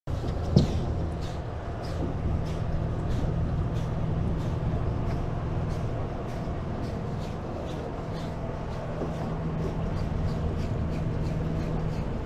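A boat's engine running steadily with a low, even hum and a faint regular tick about three times a second. A single sharp knock sounds about half a second in.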